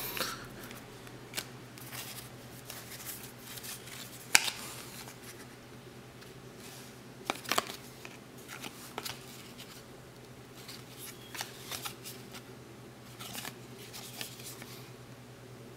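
Trading cards handled by hand as they are flipped through one at a time: scattered slides, snaps and taps of cardboard against cardboard. The sharpest snaps come about four seconds in and again past seven seconds.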